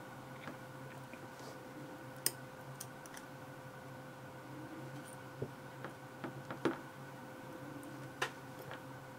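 Scattered light clicks and taps of small lock pins and parts being handled from a disassembled pin-tumbler cylinder, over a faint steady hum. The loudest click comes about two-thirds of the way through.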